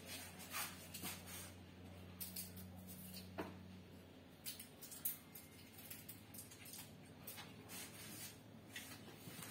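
Faint scattered clicks and light knocks of small handling noises, over a steady low hum.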